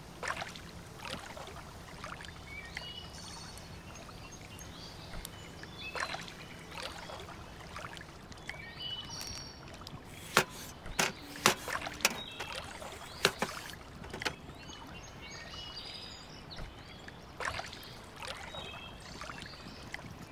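Sauce-making handling sounds over a glass bowl: ketchup squeezed from a plastic squeeze bottle, then a paper spice packet tapped and shaken, with a cluster of sharp taps and clicks about halfway through. Birds chirp now and then over a low hum that fades out midway.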